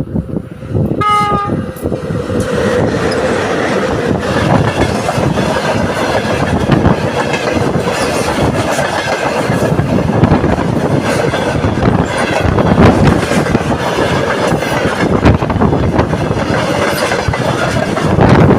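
Short horn blast from a VL80S electric locomotive about a second in, then the loaded freight train passing close, with a loud, steady rumble and the rapid clatter of wagon wheels over rail joints.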